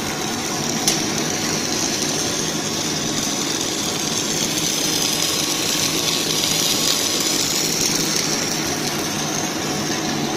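Twin-screw food extruder and its crimping and cutting rollers running steadily on a core-filled snack line: an even mechanical hiss over a low hum, with a single sharp click about a second in.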